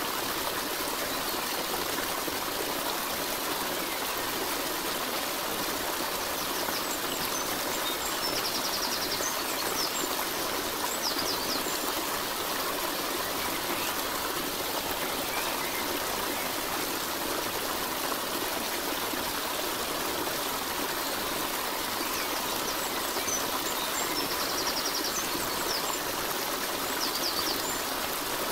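Steady rushing water like a flowing stream, with a few faint high chirps now and then.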